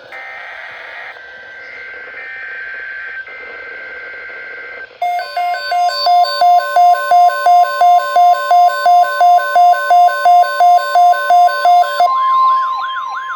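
NOAA Weather Radio emergency alert tones: a few seconds of two-pitch digital header data tones, then a loud alarm beeping about three times a second over a steady warning tone. Near the end the beeping gives way to warbling, sweeping tones while the steady tone carries on, announcing a severe thunderstorm watch.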